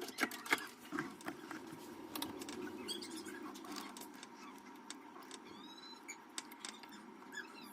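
Scattered clicks and small knocks of door-lock hardware being handled and fitted, loudest in the first second or so, over a faint steady hum, with a few short high chirps about five seconds in.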